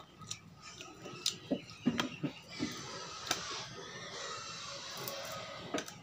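A small piece of crisp food being pulled apart by hand: scattered sharp clicks and snaps, with a soft crackling that sets in about halfway through.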